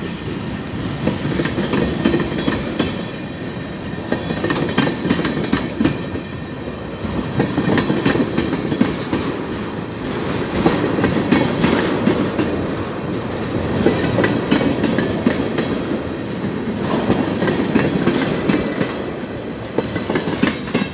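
Freight train tank cars rolling past close by, their wheels clicking and clattering over the rail joints. The rumble swells and eases every few seconds as the wheel sets go by.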